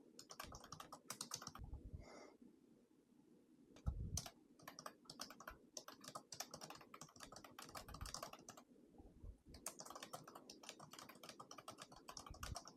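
Faint typing on a computer keyboard: irregular runs of key clicks, with a pause about two seconds in and a soft thump near four seconds.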